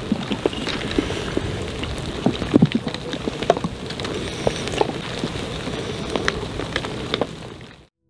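Steady rain falling, with many sharp drop ticks scattered through it, fading out shortly before the end.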